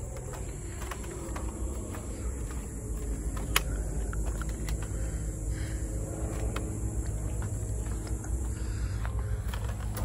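Footsteps of a person walking, a series of small irregular clicks and scuffs with one sharper click about three and a half seconds in, over a steady low rumble.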